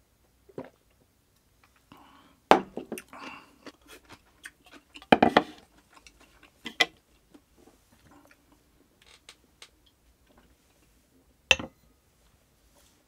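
Drinking and table sounds: a few swallows of beer from a glass, then several separate knocks of a glass and dishes on a wooden table, and a sharp click near the end as chopsticks are laid on a ceramic bowl.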